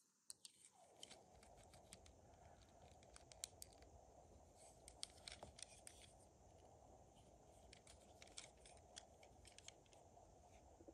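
Faint clicks and taps of LEGO plastic bricks being pressed together and handled, many small irregular clicks, as a car body is fitted onto a LEGO chassis.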